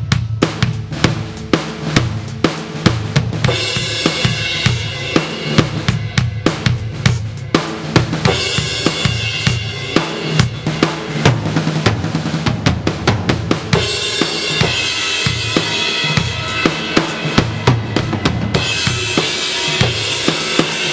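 Drum kit sounds from a 2Box electronic drum module, using kits built from BFD2 samples, played as a steady beat of kick and snare hits. Stretches of ringing cymbal wash come and go several times over the beat.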